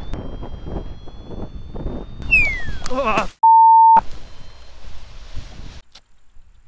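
Wind buffeting the microphone during paraglider flight, with a thin high whine above it and a falling tone a little past two seconds in. Then a brief gap and a loud, steady single-pitch beep lasting about half a second, followed by a softer wind hiss that cuts off.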